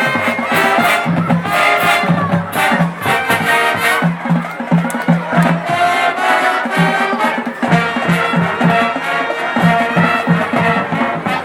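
Marching band playing a swing-jazz arrangement, brass carrying the melody over a steady drum beat, with crowd noise in the background.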